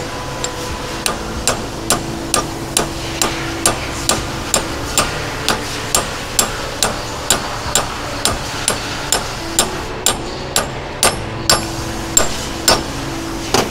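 Hammer tapping the end of a 1¼ inch pipe to drive a new bearing race onto a pump shaft: steady, evenly spaced metallic taps about two a second.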